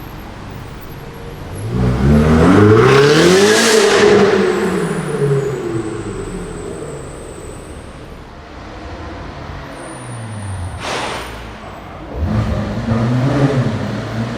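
Supercar engines revving in a tunnel. About two seconds in, one car accelerates hard past the microphone, its note climbing and then falling away. A short sharp burst comes about eleven seconds in, and near the end a second car's engine comes in and rises.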